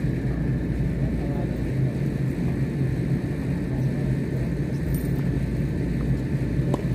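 Steady low rumble with a constant hum, like distant traffic or machinery, and a single faint knock near the end that is most likely a tennis racket hitting the ball.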